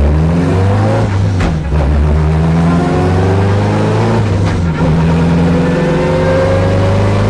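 Car engine accelerating through the gears, its pitch rising steadily with upshifts about a second and a half and four and a half seconds in.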